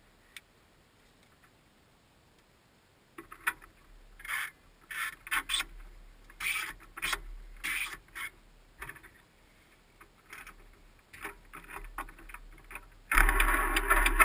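A light aircraft's piston engine being started. After a click and a few seconds of quiet come irregular bursts of noise as it is cranked, then the engine catches abruptly about 13 seconds in and runs loudly.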